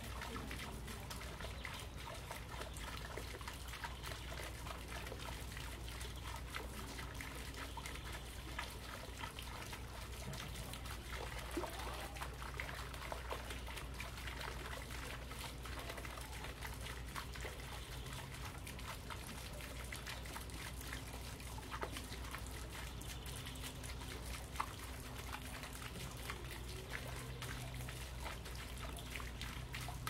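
Small fountain trickling into a stone pond: a steady, gentle splashing of falling water with fine patters of drops.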